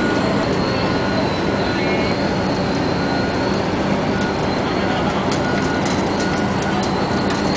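Crawler bulldozer's diesel engine running steadily close by, a constant low hum with short high squeaks repeating now and then.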